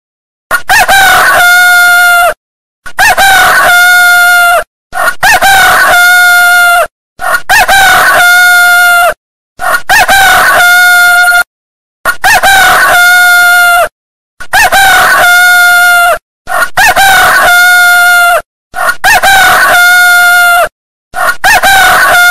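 Rooster crowing: the same loud cock-a-doodle-doo repeated about ten times, each crow just under two seconds long with short silent gaps between.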